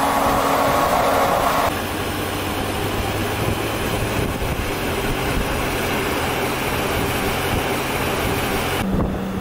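Mercedes-Benz GenH2 fuel-cell electric truck driving on the road: steady tyre and road noise with a low hum, and a high whine over the first two seconds. The sound changes abruptly about two seconds in and again near the end.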